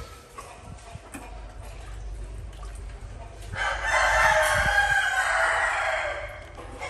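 A rooster crowing once: a long call that starts about halfway through and lasts nearly three seconds.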